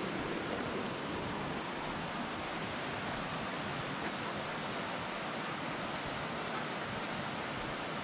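Mountain creek rushing steadily over rocky riffles: an even, unbroken water noise.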